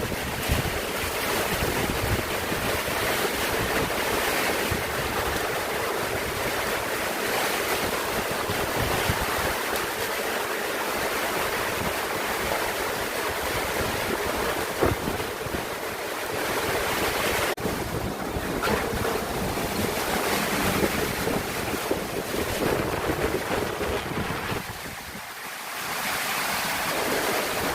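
Summer storm wind rushing and gusting, buffeting the microphone, with a brief lull near the end.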